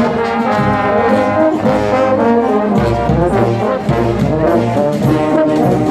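A brass band plays a tune as it marches past, with trombones and trumpets carrying the melody. Low bass brass notes grow stronger about three seconds in.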